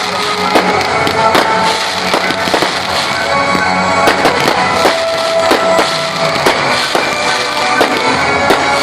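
Fireworks going off in a rapid, irregular string of bangs and crackles, with music playing throughout.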